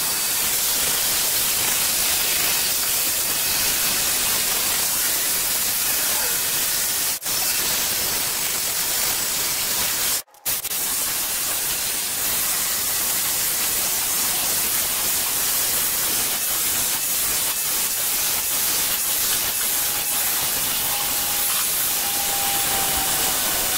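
Cordless Ryobi drill spinning a wire brush against rusty cast-iron grill grates: a steady, harsh scouring hiss as the brush strips rust loosened by a vinegar soak. The noise breaks off briefly twice, about a third of the way in and again shortly after.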